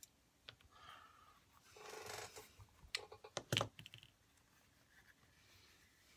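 Quiet handling of a cut leather piece: a short rustling scrape about two seconds in, then a quick run of clicks ending in a sharp knock as a folding utility knife is laid down on a plastic cutting mat.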